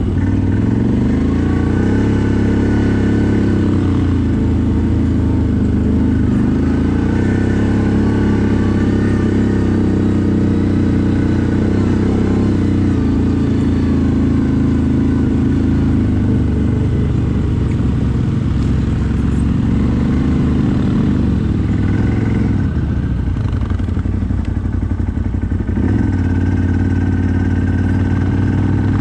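CFMoto 1000 ATV's V-twin engine running while riding, its pitch rising and falling with the throttle. It eases off about three quarters of the way through, then picks up again near the end.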